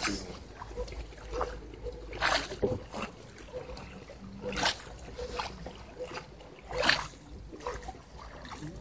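Oars of a wooden rowboat dipping and splashing through the water in slow strokes, four strokes roughly two seconds apart.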